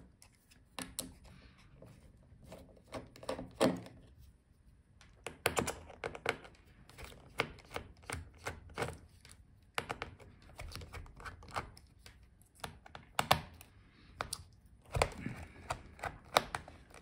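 Precision screwdriver backing out the small screws of a laptop's metal hinge brackets: irregular light clicks and ticks of the bit and screws, with small knocks of metal parts against the case.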